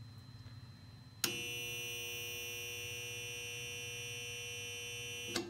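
1964 DoAll 1612-U bandsaw's built-in blade welder giving a steady electric buzz while the anneal button is held. Current is passing through the freshly welded bandsaw blade to anneal the weld. The buzz starts suddenly about a second in, runs steady for about four seconds, and cuts off near the end.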